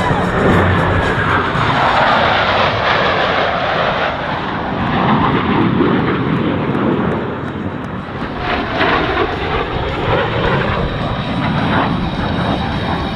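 Blue Angels F/A-18 Hornet jets making a loud, steady jet roar as they pass, the pitch of the roar sweeping down in the first few seconds and again about two-thirds of the way through.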